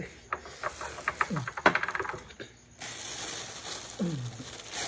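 A quick run of light clicks and taps, then a clear plastic bag rustling and crinkling as it is handled from about three seconds in.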